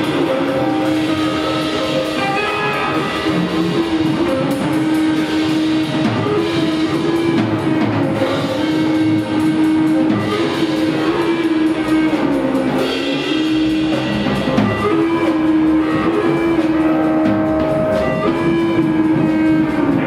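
Live rock band playing an instrumental improvisation: drum kit and electric guitars, over a sustained droning note that bends in pitch now and then.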